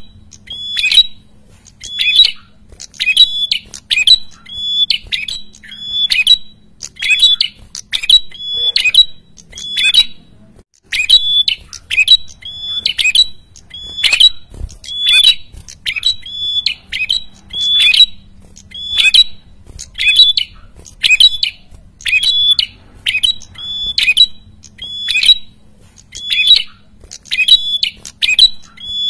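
A caged prenjak kepala merah calling nonstop, in full song (gacor): a short, harsh, noisy note repeated about once a second, with one brief pause near the middle.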